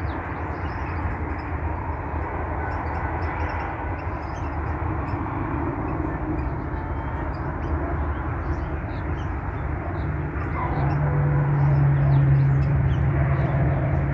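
Steady low rumble of distant city traffic. About ten seconds in, a low engine drone rises over it and grows louder. Faint high chirps sound now and then.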